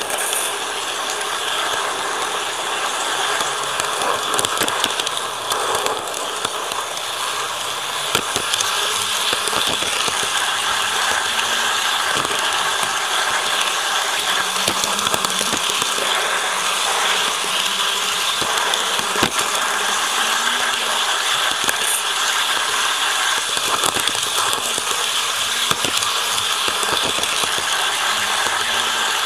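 KATO N-gauge model train running along its track, heard from a camera riding on one of its wagons: a steady mechanical whir with many small, irregular clicks and rattles.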